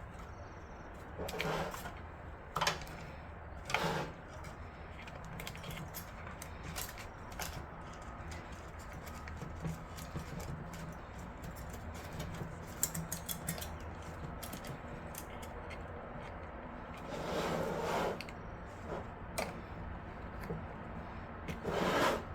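Hands handling computer cables and plastic case parts: scattered small clicks, taps and rustles, with a few louder scuffs of cables being pushed and routed.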